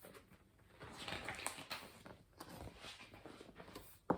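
Faint paper rustling and handling noise for about three seconds as a picture book's page is turned, ending in a single sharp click.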